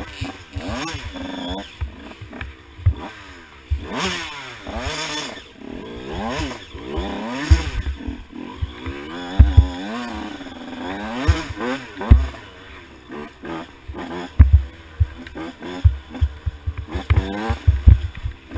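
Big-bore 2012 KTM 85 SX two-stroke dirt bike engine revving up and falling back over and over as it is ridden hard. Strong low thumps come through at irregular intervals.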